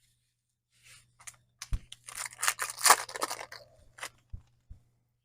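Foil wrapper of a trading card pack being torn open, a crinkly tearing sound with a few soft knocks as the cards are handled.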